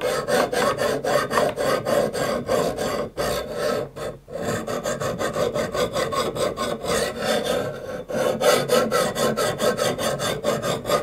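Sharpening stone scraping in quick back-and-forth strokes along a knife's bevel, about three strokes a second, with two brief pauses about three and four seconds in.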